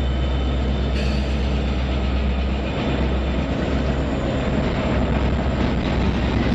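Norfolk Southern diesel-electric locomotives passing close by, among them a GE ES44AC with its V12 four-stroke diesel. Their engines make a steady low drone over the noise of the wheels rolling on the rails.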